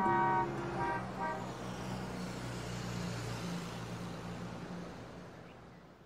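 City road traffic ambience: a steady rush of passing vehicles with a couple of short car-horn toots about a second in, fading out gradually over the last couple of seconds.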